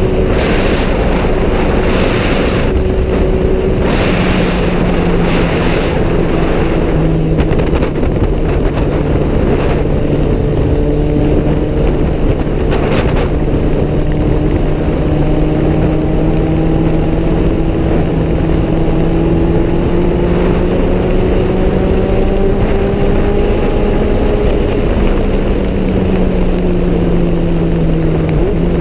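Kawasaki Z1000 inline-four engine cruising at highway speed, heavily mixed with wind rushing over the camera microphone. The engine note drops a few seconds in, climbs gently and eases off again near the end.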